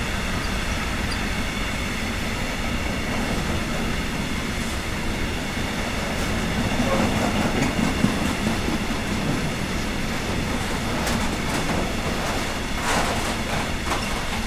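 Freight wagons loaded with pipes rolling past on the rails: a steady rumble of steel wheels on track. Clicks of the wheels over the rail joints come more often in the second half, until the last wagon passes near the end.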